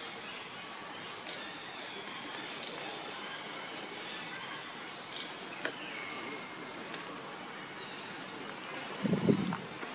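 Steady high-pitched drone of insects over forest background noise, with a couple of faint clicks. Near the end, a brief, loud low thump-like rumble stands out.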